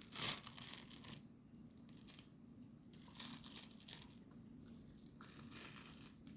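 Membrane being peeled off raw beef liver by hand: faint, irregular wet tearing and rustling, the clearest just after the start.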